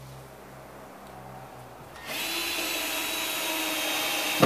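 Cordless drill/driver running at a steady whine for a couple of seconds, starting about two seconds in and stopping near the end, as it drives a screw through the drywall edge into a wooden backing strip.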